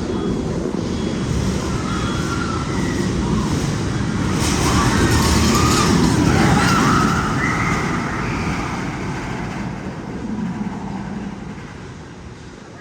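Magnum XL 200 roller coaster train rumbling through, swelling to its loudest about halfway and then fading, with higher gliding sounds over the rumble near the peak.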